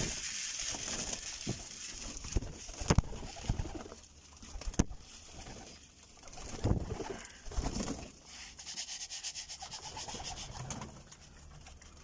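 Domestic pigeons cooing in their loft, low murmuring calls coming and going, with scattered sharp taps and clicks.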